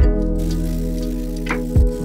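Background music with sustained bass notes and drum hits near the start and again about one and a half seconds in.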